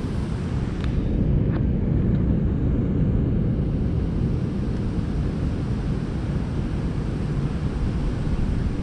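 Steady rush of water pouring through a dam spillway, with wind rumbling on the microphone. A couple of faint clicks about a second in.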